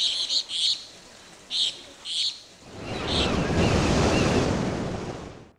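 Short bird chirps in quick little groups, then about halfway a sea wave rushes in, swells and slowly dies away, with one more chirp over it.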